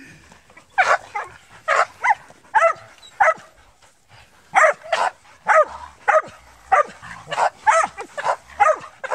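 Hunting dogs barking repeatedly as they hold a wild boar at bay, about two short barks a second with a brief pause near the middle.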